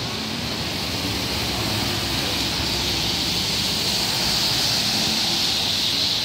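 Traffic on a wet road: a steady hiss of car tyres through standing rainwater, swelling a little in the second half.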